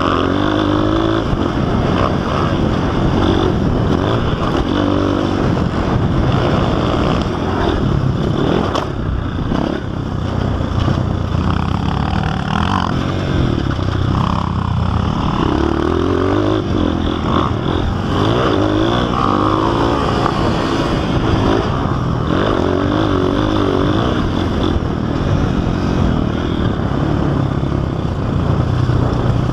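Honda CRF230 dirt bike's single-cylinder four-stroke engine heard on board, revving up and down as the bike accelerates, shifts and slows for corners, its pitch rising and falling every second or two.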